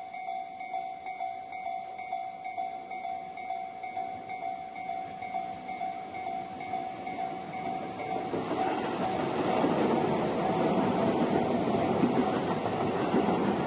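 A Japanese level-crossing warning bell clangs in an even, steady pulse. About eight seconds in, a Tobu Tojo Line electric train reaches the crossing, and the rumble and clatter of its wheels on the rails grows louder over the bell.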